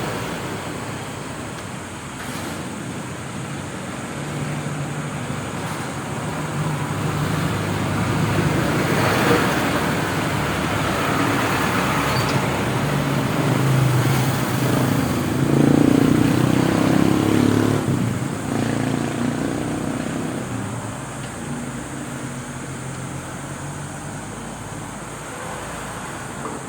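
Amplifier test through its speaker: a low mains hum under a rushing, noisy hiss that swells louder through the middle and then eases off, a check of whether the volume control still makes the output scratchy.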